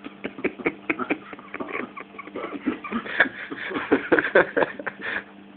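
A man chewing and smacking his lips loudly while eating: a rapid, irregular run of mouth smacks, denser and louder in the second half.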